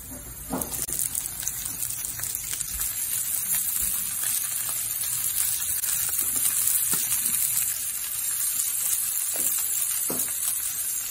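Diced red onion and chopped red bell pepper sizzling in hot oil in a nonstick frying pan: a steady, hissing sizzle that grows suddenly louder about half a second in. A few faint clicks sound over it.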